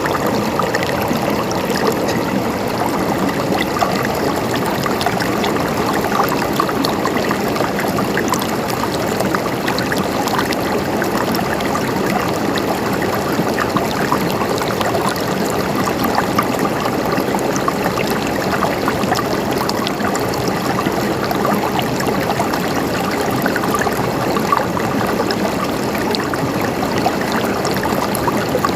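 Running water gurgling steadily, with many small splashes and drips flecking the flow.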